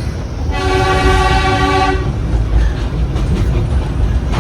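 Darjeeling Himalayan Railway toy train sounding one steady whistle blast of about a second and a half, over the low rumble of the train running.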